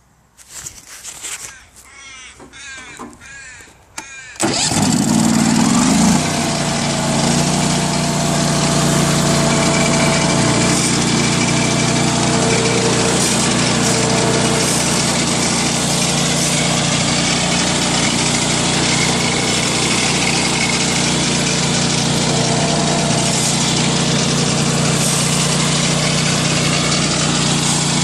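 The mill's motor starts up about four seconds in and then runs steadily with a constant hum. Before it starts, scattered bird calls.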